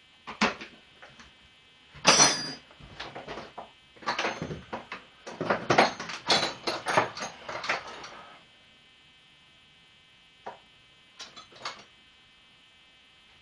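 Metal hand tools (spanners and sockets) clinking and clattering, with a sharp clank about two seconds in and a quick run of knocks that stops about eight seconds in.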